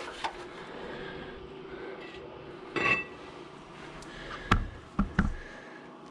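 Metal clinks and knocks from taking off a rear brake caliper and its bolts. There is a short clink with a faint ring about three seconds in, then three sharp knocks near the end.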